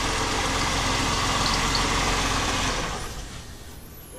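Ford Taurus engine running rough with a knock, which the owners take for bad bearings knocking at the higher RPMs. The engine noise dies down about three seconds in.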